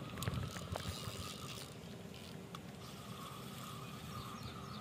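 Pioneer Fiery XB 7000 spinning reel being cranked to retrieve line, a steady whirring that pauses for about a second and a half in the middle, with a few sharp clicks from handling the rod in the first second and a half and low wind rumble underneath.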